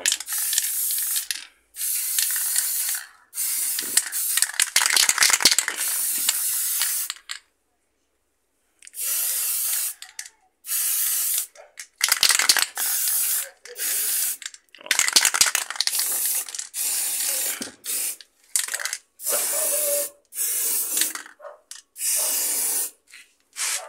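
Aerosol can of white gloss spray paint hissing in repeated short bursts as the nozzle is pressed and released, most about a second long with brief gaps. One longer spray of about three seconds comes early on, then a short pause before the bursts resume.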